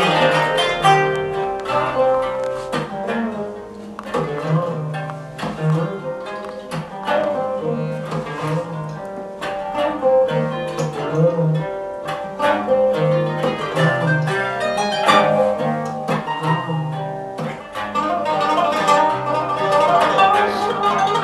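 Live instrumental ensemble music: a busy plucked-string melody of quick notes over a repeating bass line.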